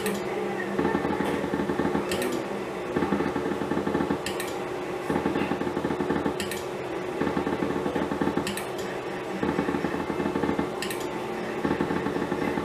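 Slot machine running spin after spin: a rattling run of reel sounds, each cut off by a sharp click, repeating about every two seconds.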